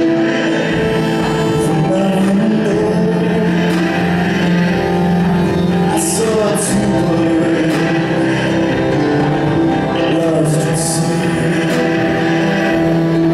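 Live song on electric keyboard: held keyboard chords with a male voice singing over them.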